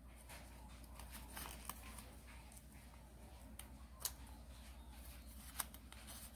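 Origami paper rustling and crinkling faintly as fingers fold and crease it, with scattered sharp ticks, the clearest about four seconds in and again a second and a half later, over a low steady hum.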